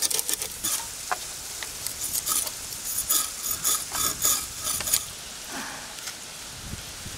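Needlefish being scaled by drawing them along the edge of an aruvamanai, a fixed curved blade on a wooden base: quick rasping scrapes of blade on fish skin, several a second, stopping about five seconds in. A low rolling rumble follows near the end.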